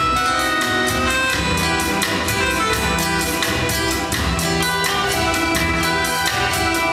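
Live band playing the instrumental part of a Sinhala pop song, with keyboard, guitars and a drum kit keeping a steady beat, no voice yet.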